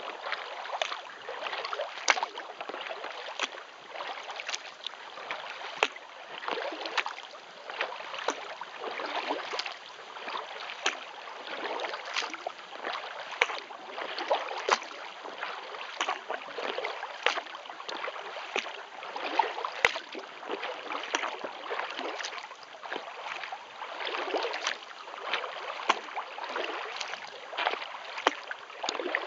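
Kayak paddle strokes in calm lake water: the blades dip in and lift out with splashes and drips, one stroke about every second and a quarter in a steady rhythm.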